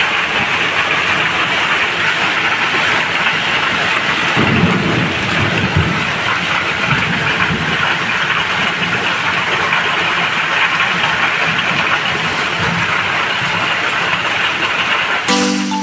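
Hailstorm: heavy rain and hail pelting down in a steady, dense hiss, with a low rumble about four to six seconds in.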